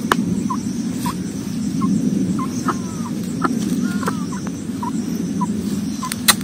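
Short, single-note bird calls repeated about every half second, some with a small rising or falling hook, over a steady low rumble. One sharp click sounds just before the end.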